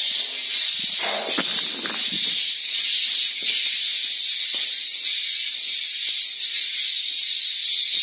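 Steady, dense high-pitched twittering of edible-nest swiftlet calls filling a swiftlet house's roosting room, loud throughout. A few soft knocks of handling come in about a second in.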